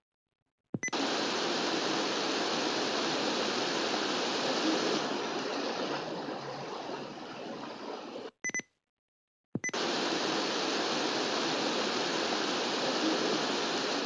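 Steady radio static hiss, cut to silence twice for about a second: once at the start and again about eight and a half seconds in, each gap edged by short high beeps.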